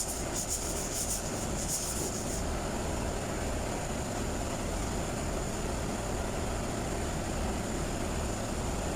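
Steady machine noise with a low rumble and a thin high whine, with choppy bursts of high hiss during the first two seconds.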